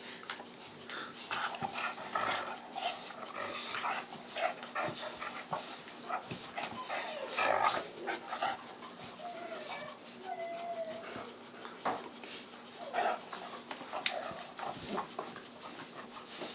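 A puppy and an adult dog play-wrestling: irregular scuffling and mouthing noises, with a few short whines about ten seconds in.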